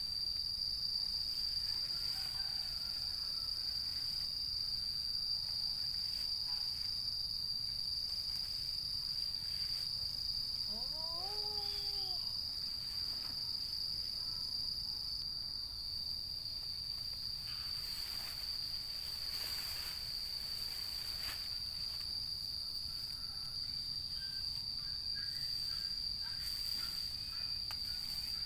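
Insects keeping up a steady, high-pitched drone on one unbroken tone. Around eleven seconds in there is a short call that rises and then falls.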